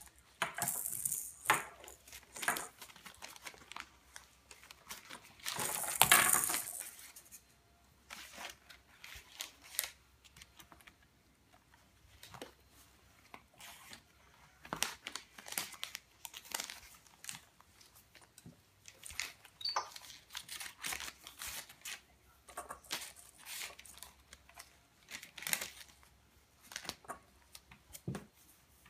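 Paper tearing and crinkling as a baby capuchin monkey pulls at and shreds notebook pages, in irregular bursts. The longest and loudest rip comes about six seconds in.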